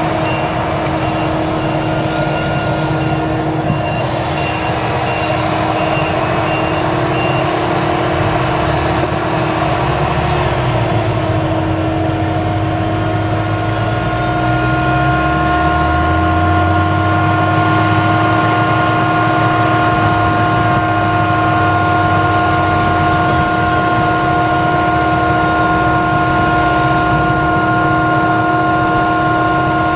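Claas Jaguar 970 self-propelled forage harvester running under load as it chops standing millet, its V8 engine rumbling under a steady, high machine whine. A tractor pulling a silage trailer runs alongside, its engine note shifting a little before halfway as it moves off.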